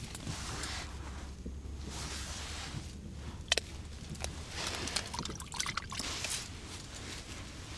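Rustling and handling of ice-fishing gear and clothing, with a sharp click about three and a half seconds in and more small knocks a little later, over a low steady rumble.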